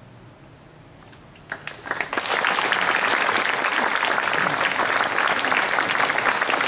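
Audience applause after the last chord of an a cappella song. After a short quiet moment, a few scattered claps come about a second and a half in and swell within a second into full, steady applause.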